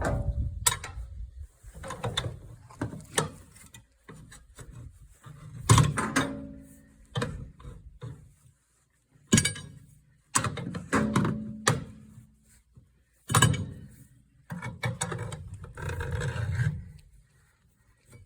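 Tire iron prying a small tubeless tire's bead over a steel rim: irregular clanks and knocks, a few sharper strikes among them, with rougher working noise in between. The prying is hard going and damages the bead.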